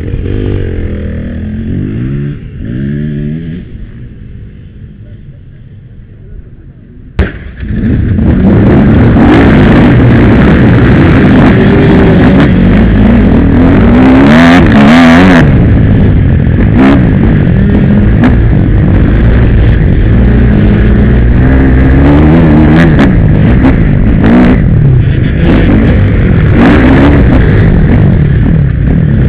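Enduro dirt-bike engines idling and blipping at the start line, then about seven seconds in a sharp knock and the onboard bike's engine goes to full throttle. It stays very loud from there on, the revs rising and falling as it races, heard close up from a camera mounted on the bike.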